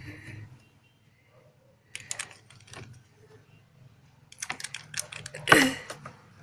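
Quick clicks and taps of a stirrer knocking against a container while glue slime is stirred with salt water to thicken it. A short cluster comes about two seconds in, a longer run near five seconds, and one louder clack about five and a half seconds in.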